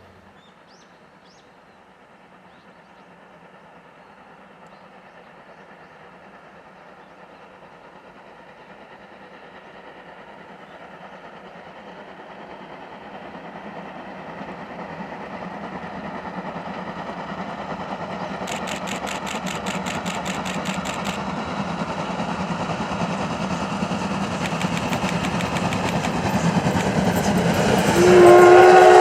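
D51 steam locomotive hauling a train as it approaches, its running sound growing steadily louder. About a second before the end its steam whistle starts to blow loudly.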